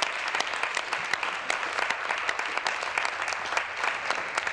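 Legislators applauding: many hands clapping steadily.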